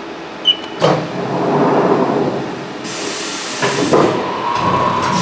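Haas VF2-SS machining center's automatic tool changer swapping a tool: a short beep, clunks of the changer and spindle, and a long hiss of air, ending with a steady whine.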